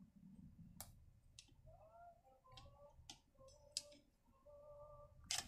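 Near silence with about half a dozen faint clicks and a few soft squeaks in between, as a rubber fuel return hose is worked onto a chainsaw carburettor's fitting by hand.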